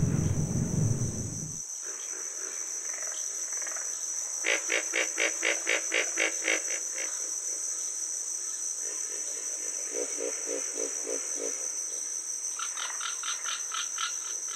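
Frogs croaking in quick runs of evenly spaced pulses, about five a second, three times, over a steady high insect trill. Piano music fades out in the first second or two.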